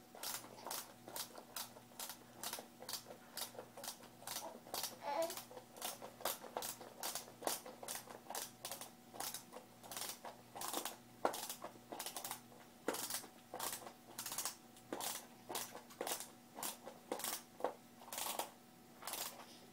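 Hand screwdriver driving screws into the plastic frame of a baby rocker: a steady run of short clicks, about two or three a second.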